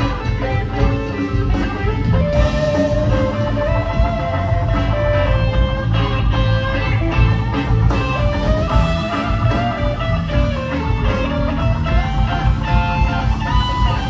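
Live rock band playing an instrumental passage: an electric guitar lead of long, sustained notes climbing in phrases over bass, drums and keyboards.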